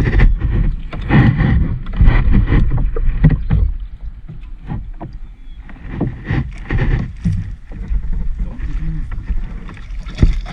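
Kayak paddle working in shallow, muddy river water: irregular splashes and knocks, with a lull about four seconds in.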